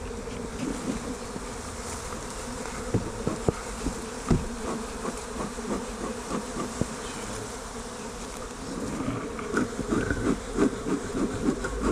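A swarm of honey bees buzzing, a steady hum that holds one pitch, with scattered light taps over it.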